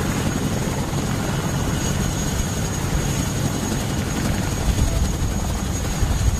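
CH-47 Chinook tandem-rotor helicopter lifting off and flying away, its rotors beating steadily over a thin, high turbine whine.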